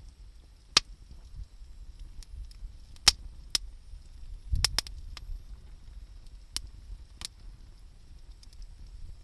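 Wood fire crackling, with sharp pops every second or so and a quick cluster of them about halfway through.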